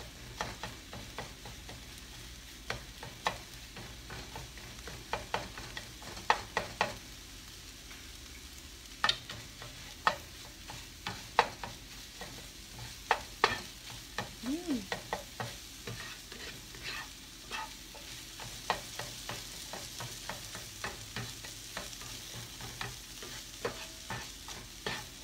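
Spatula scraping and tapping against a nonstick frying pan as egg and bell pepper are scrambled, in many irregular clicks, over a faint sizzle of frying in oil.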